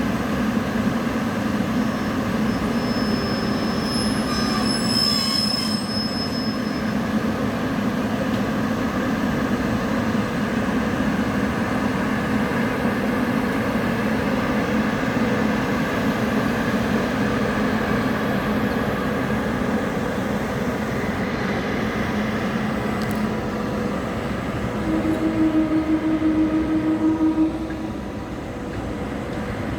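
Express train hauled by a WAP-7 electric locomotive rolling out of a station: steady noise of wheels on the rails, with a high wheel squeal a few seconds in and a short pulsing buzz near the end.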